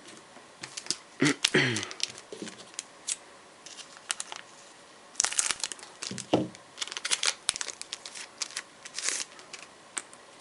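Foil Yu-Gi-Oh booster pack wrapper being crinkled and torn open, in three bouts of crackling with brief squeaky tears.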